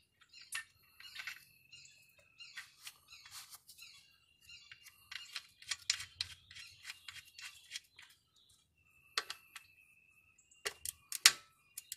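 Faint irregular clicks and scrapes of a transmission drain plug being threaded back in by hand, with a couple of sharper clicks near the end. A thin high tone comes and goes several times over them.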